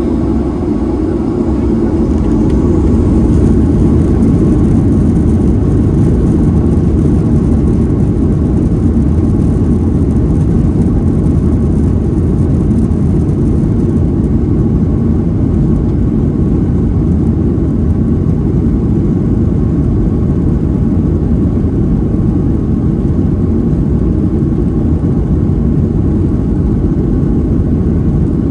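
Jet airliner cabin noise: a steady low rumble of engines and rushing air, growing a little louder about three seconds in and then holding level.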